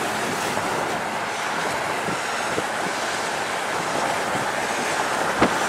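Steady rush of wind and road noise from a moving car, even and unbroken.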